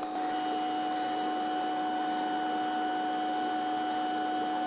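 DC TIG welding arc from a Miller Dynasty 200DX at about 125 to 130 amps on 4130 chrome-moly tube: a steady hiss with a few held tones. The arc catches a moment in and then burns evenly.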